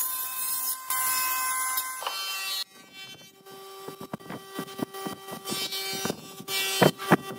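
Table saw running with a steady whine as its blade cuts through a piece of wood held upright in a jig; it cuts off abruptly about two and a half seconds in. Then a pen scratches in short, irregular strokes as it traces around a cardboard template on a wooden block, over a low steady hum.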